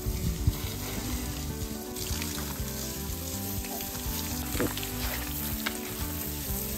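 Garden hose spraying water onto an elephant's hide, a steady hiss, under background music.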